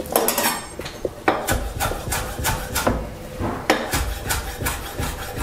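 Chef's knife dicing fresh cilantro on a wooden cutting board: uneven runs of knife strikes against the wood, about two to three a second.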